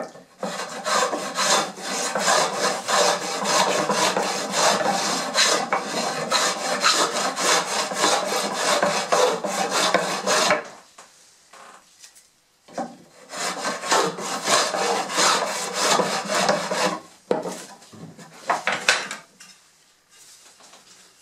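Wooden rebate plane (Simshobel) cutting a rebate along the edge of a board: quick, rasping, repeated short strokes. The strokes run for about ten seconds, stop briefly, then go on for about four more seconds, with one last short stroke after that.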